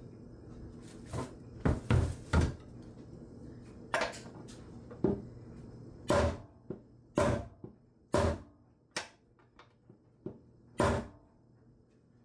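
Repeated sharp metal knocks on a socket held against an engine oil pan, about a dozen irregularly spaced strikes, some with a short ring, knocking a dent out of the pan.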